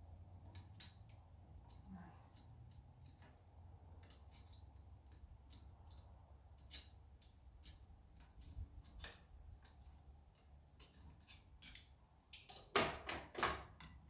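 Scattered small metallic clicks and clinks of hand tools and parts on a Ford 7610 tractor's diesel engine being dismantled, with a quick run of louder clanks about two-thirds of a second long near the end. A low steady hum runs underneath.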